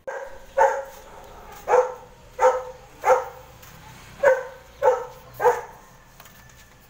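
A dog barking seven times in quick succession, four barks and then, after a short gap, three more.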